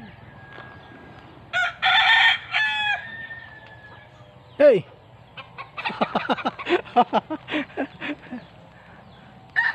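Rooster crowing loudly about a second and a half in, then a single falling squawk and a rapid run of short clucking calls from yard poultry over the next few seconds.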